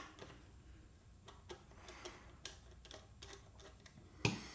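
Screwdriver backing out the trigger-plate screw of a Marlin 1894 CST lever-action rifle: a string of faint, irregular small metal clicks, with a sharper knock near the end.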